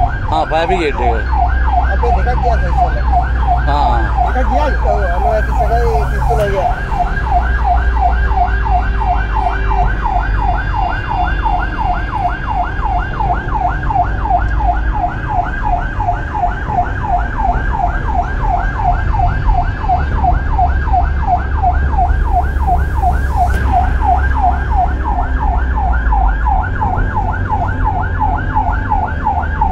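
Siren sounding a fast, steady yelp, its pitch sweeping over and over several times a second, over a steady low rumble.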